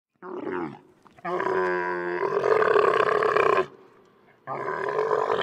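Dromedary camel calling: one short call, then a long call of about two and a half seconds, and another begins near the end.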